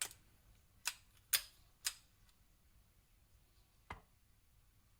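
Five sharp metallic clicks, spaced irregularly, from a compact 1911 pistol being handled as it is field-stripped, its slide and slide stop worked by hand.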